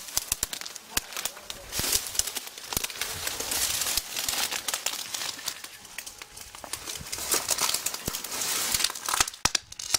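Dry brambles, dead weeds and twigs crackling and rustling as someone pushes through thick brush on foot, with scattered sharp snaps that come thickest near the end.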